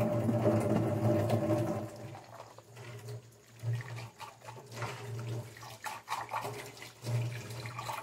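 Kitchen tap running into a stainless-steel sink while a soapy mug is rinsed by hand under the stream, with water splashing. It is louder for about the first two seconds, then softer, with a few light knocks of the mug being handled.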